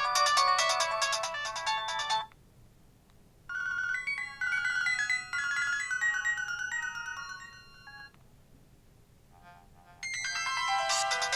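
Nokia 215 (2015) mobile phone ringtones playing in turn. One electronic melody cuts off about two seconds in, another plays from about three and a half to eight seconds, and a third starts near the end after a quiet gap.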